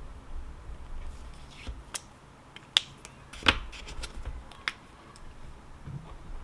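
A few sharp, irregularly spaced clicks and taps, the two loudest close together near the middle.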